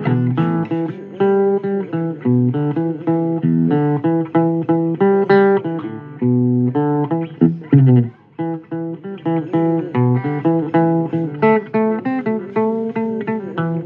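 Guitar music: a run of plucked notes, several a second, with a brief pause about eight seconds in.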